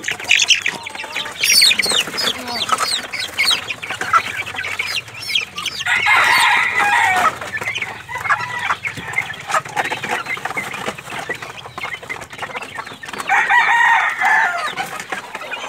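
Young gamefowl chickens in a coop, many quick high peeps and clucks at first, then two longer drawn-out crow-like calls, one about six seconds in and another near the end.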